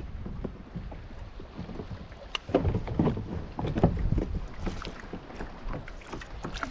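Water splashing and knocking around a fishing kayak: a run of irregular splashes starting about two and a half seconds in, over a low wind rumble on the microphone.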